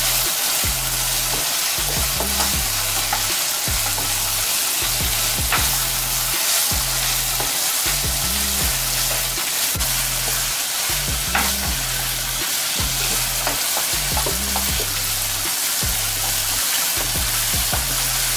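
Chicken pieces and spices sizzling as they fry in oil in a non-stick wok while a wooden spoon stirs and scrapes through them, with a few light knocks.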